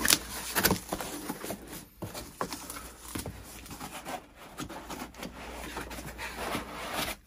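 A cardboard shipping box being opened by hand: a few sharp knocks and the slit of a utility knife through packing tape in the first second, then the flaps folded back and a foam packing block scraping and rustling against the cardboard.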